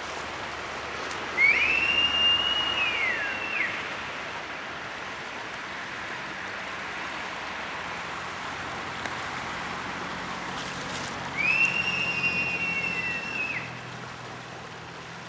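Forest ambience picked up by a camera microphone: a steady rushing hiss, with a bird giving a long whistled call twice, about ten seconds apart. Each call rises quickly, holds a high pitch and then falls, lasting about two seconds.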